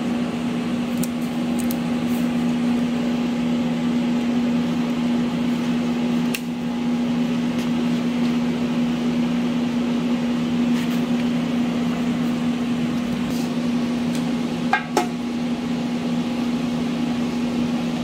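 Steady electric motor hum of a running shop machine, such as a fan, with a strong low tone throughout. A few light clicks and a short knock about three seconds before the end, as the primer cans and mixing cup are handled.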